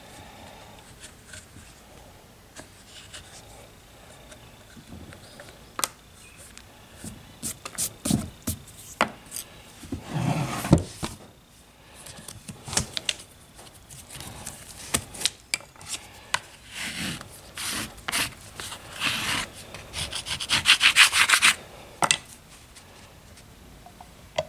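Plaster casting mold being handled and opened on a wooden workbench: scattered knocks and clicks, rubbing and scraping of plaster on wood and plaster, with a longer rasping scrape near the end as the mold is worked apart.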